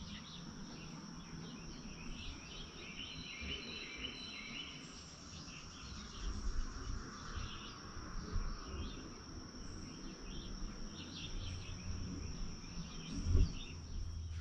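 Lakeside nature ambience: a steady, high-pitched insect drone with scattered bird chirps, over a low rumble with a few soft thumps, one louder near the end.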